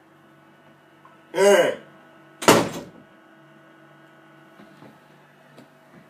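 A short shout with falling pitch, then about a second later a sharp thump of a thrown sandal hitting. A mini fridge hums steadily underneath.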